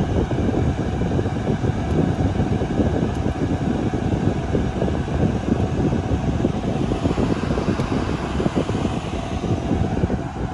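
Cooling fans running with a steady, loud rushing noise, strongest in the low range.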